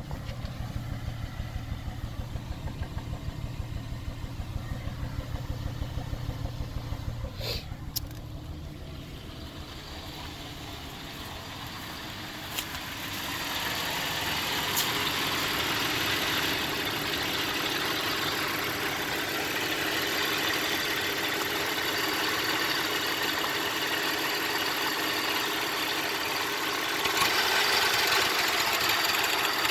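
2004 Cadillac SRX engine idling with a regular, uneven pulsing beat: the rough idle the owner is showing. A couple of sharp clicks come about eight seconds in, and from about thirteen seconds the running sound grows louder and hissier.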